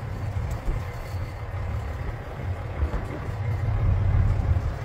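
Low rumble of a fishing boat's engine running, with wind on the microphone; it grows a little louder near the end.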